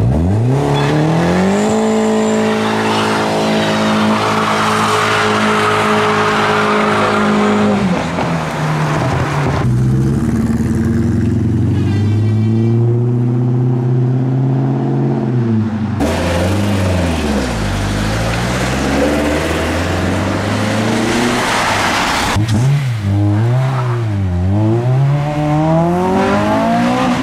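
Modified car engines revving hard as the cars pull away. The first engine climbs quickly and is held at high revs for about six seconds. Later, after an abrupt change, an engine is blipped up and down several times.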